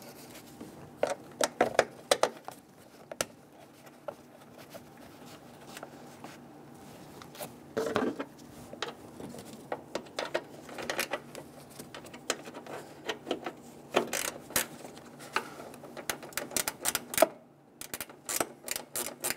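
Small ratcheting wrench clicking in quick runs as a bolt is run down, among scattered knocks of metal tools and plastic trim; the clicking is densest near the end.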